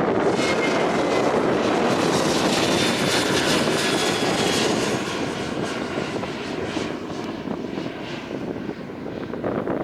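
Airliner's engines passing close by as a loud, steady rush with a faint high whine, easing off after about five seconds.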